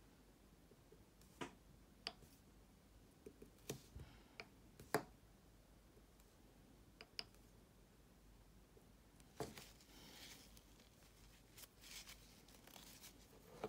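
Near silence with a dozen or so faint, scattered clicks and taps as a dotting tool is dipped into a small plastic pot of paint and handled; the sharpest tap comes about five seconds in.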